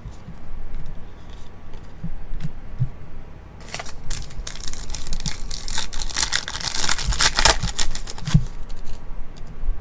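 Foil wrapper of a 2023 Panini Legacy football card pack being torn open and crinkled by hand. The crinkling starts about four seconds in, is loudest toward the end, and stops shortly before the end.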